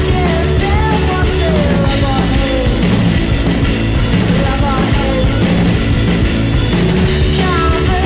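Rock music with drums, guitar and a sung melody line.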